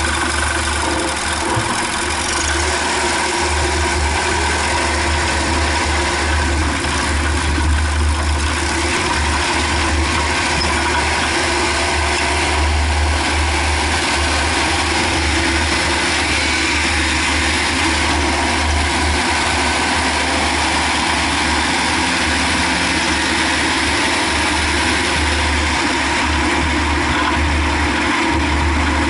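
Car on the move, steady engine and road noise, with the knock that appears while coasting on overrun. The knock remains after a new engine mount and a complete new driveshaft.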